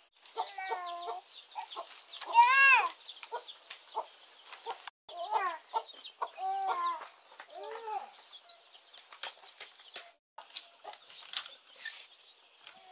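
A hen clucking and calling: about five drawn-out calls spread over the first eight seconds, the loudest about two and a half seconds in.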